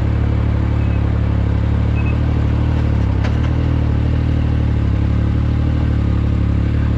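Yamaha YXZ1000R side-by-side's three-cylinder engine running at a steady idle, with a single click about three seconds in.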